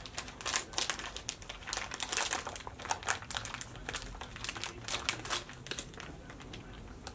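Plastic Trolli gummy-candy bags crinkling as they are handled, a quick, irregular rustling that thins out about six seconds in.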